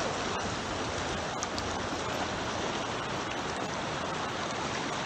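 Steady rushing of water churned by many kayak paddles, with a few faint clicks.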